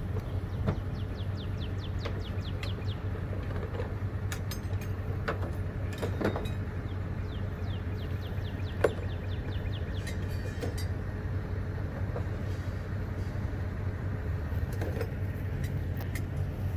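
Steady low mechanical hum, with a few scattered knocks and two runs of faint, quick high chirps.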